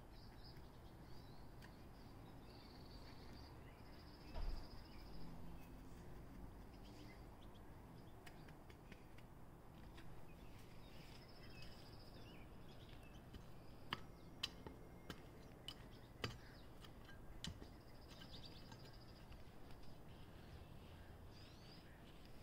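Quiet yard ambience with faint birds chirping throughout, a soft thump about four seconds in, and a handful of sharp clicks in the second half.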